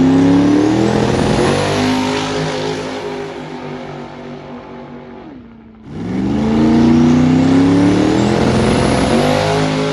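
Ford Mustang drag car launching hard off the line and accelerating down the strip, its engine note climbing and stepping down with each gear change as it pulls away and fades. The sound cuts off about five and a half seconds in and a second launch starts right after.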